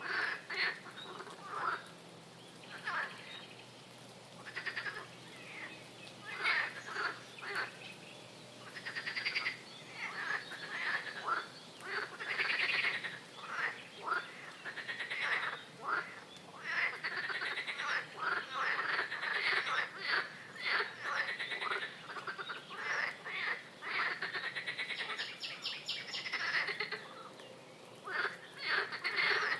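A chorus of frogs croaking: many short calls that overlap and come irregularly, thickest through the middle. Some croaks have a fast pulsed rattle.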